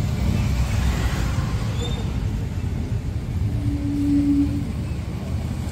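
Ambulance van driving slowly past, its engine and tyres making a steady low rumble. A single steady tone sounds for about a second a little past the middle.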